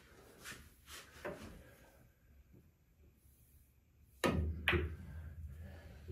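Pool shot: the cue tip strikes the cue ball with a sharp click, and about half a second later the cue ball clacks into an object ball. A low rumble of balls rolling on the table cloth follows.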